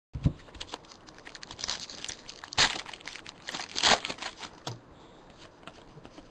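Foil trading-card pack wrappers crinkling and tearing as packs are ripped open by hand: a run of sharp crackles, loudest about two and a half and four seconds in.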